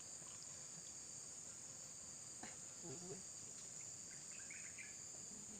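Insects chirring in a steady, high, unbroken drone, with a few faint murmured words in the background.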